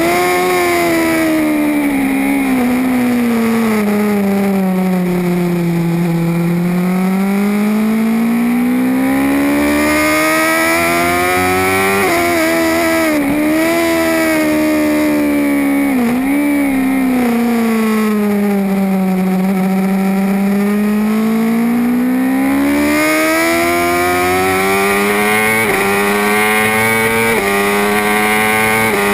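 BMW S 1000 RR inline-four superbike engine, tuned with an Alpha Technik engine kit, running hard on track. Its pitch sinks slowly over several seconds and climbs back high twice, with quick short dips in between.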